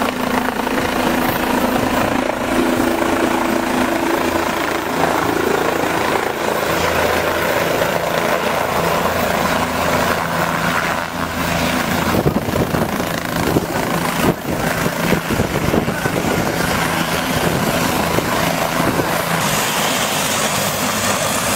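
Helicopter rotor and turbine running steadily as it flies low and sets down. Gusty rushing in the middle, typical of rotor downwash hitting the microphone.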